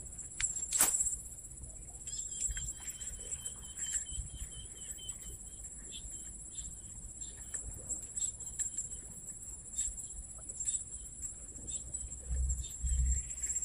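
Insects buzzing in a steady high-pitched drone. About two seconds in, a repeated chirping call runs for a couple of seconds. Faint scattered clicks and a few low thumps near the end.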